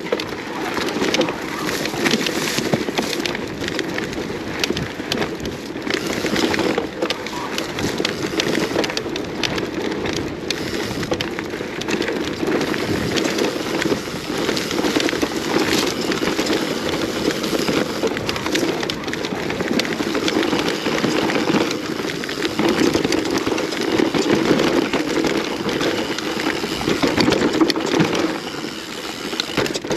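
Mountain bike riding down a rough enduro trail: knobby tyres rolling over dirt, roots and stones, with constant rattling and clatter of the bike over the bumps.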